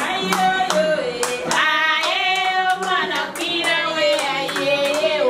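A voice singing long, sliding melodic notes over a steady run of hand claps.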